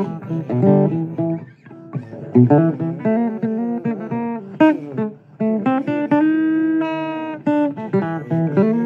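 Blues guitar playing an instrumental passage of picked notes, some bent, with a long sustained note about two-thirds of the way through.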